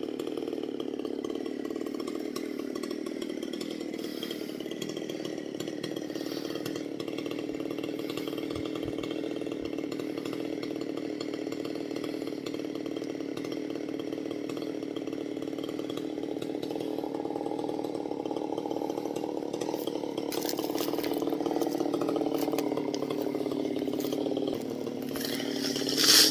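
Chainsaw running steadily under load while cutting a tree, its engine note holding with small drifts in pitch. Sharp crackles come in over the last several seconds and grow louder toward the end.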